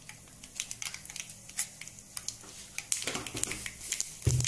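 Mustard seeds popping and crackling in hot oil in a steel pan: a few scattered pops at first, growing denser about three seconds in as the seeds start to splutter. A short low thump near the end.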